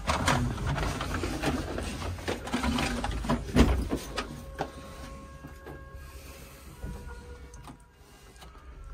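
Passenger elevator running: a constant low hum with a few faint steady whining tones in the second half. Over it, in the first half, come knocks and rustling from people shuffling in the car, and a sharp thump a little over three and a half seconds in.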